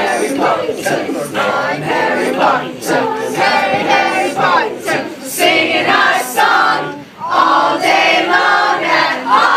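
A large crowd singing a sing-along chant together in many overlapping voices, with a brief pause about seven seconds in.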